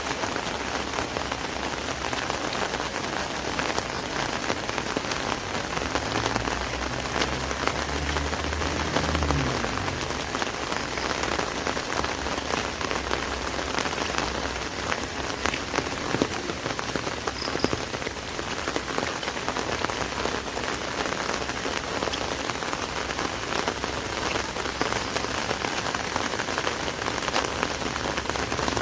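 Steady rain drumming on an umbrella canopy overhead, a dense hiss full of small drop ticks. A low rumble comes and goes between about six and ten seconds in.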